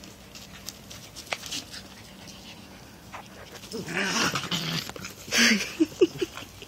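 A dog growling and huffing, in a rough stretch from about four seconds in, then a loud short huff and a few brief whimpers near the end.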